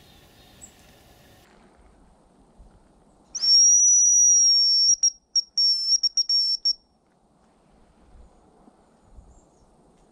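Hazel grouse decoy whistle blown to imitate a hen hazel grouse: one high, thin held note of about a second and a half, then a stuttering run of short notes.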